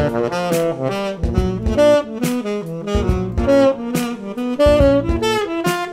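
Tenor saxophone playing a fast jazz line of triad arpeggios in changing note orders, shifting up mostly by whole steps through C, D, E, F-sharp, A-flat, A and B triads before resolving to C major, a phrase that implies other harmony over a one-chord C major 7 vamp.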